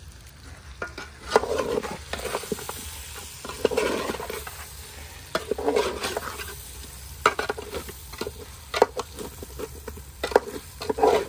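A metal utensil stirring masala-coated chicken pieces in a steel pot, scraping and clicking against the pot every second or two, over a light sizzle from the pot on the wood fire.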